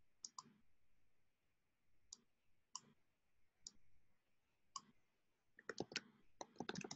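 Faint computer mouse clicks, a handful of single clicks a second or so apart, followed near the end by a quick run of keyboard keystrokes as text is typed.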